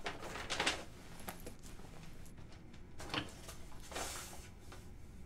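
A few brief rustles and light knocks of clothing and a bag being handled as someone moves about a small room: one about half a second in, then two more around three and four seconds in.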